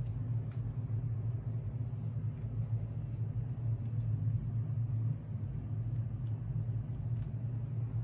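Steady low rumble, with a few faint light ticks over it.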